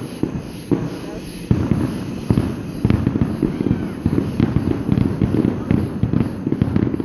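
Fireworks going off in a rapid, continuous string of loud pops and bangs, getting denser about a second and a half in.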